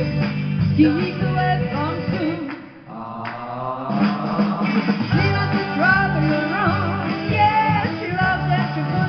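A woman singing into a handheld karaoke microphone over a rock-and-roll backing track. The music dips briefly almost three seconds in, then comes back.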